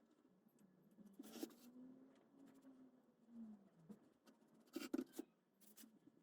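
Faint scratchy strokes of a small paintbrush working paint into plywood window cut-outs. They come in short clusters about a second in and again around five seconds in.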